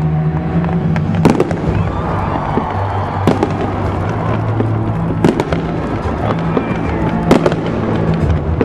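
Fireworks display going off, with sharp cracks about every two seconds and crackling between them, over music with a steady low bass.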